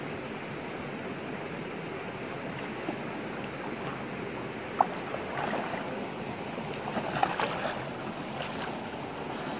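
Steady rush of shallow stream water, with splashing from about five seconds in as a person wades and lunges through it. A single sharp click, the loudest sound, comes just before the splashing.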